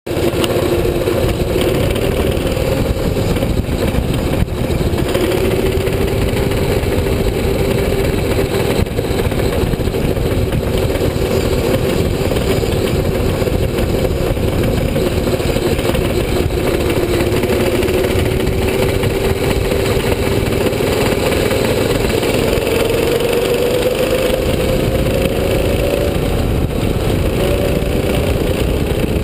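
Yellow Jacket go-kart's small single-cylinder engine running steadily under way, its pitch wavering and then climbing for a few seconds near the end before falling back, over a steady rushing noise.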